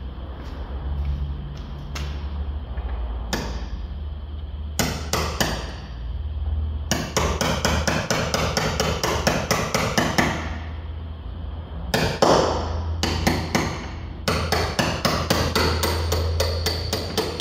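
Hammer blows ringing on the steel front-suspension parts of an Audi Q7, struck in quick runs of several blows a second with short pauses between runs.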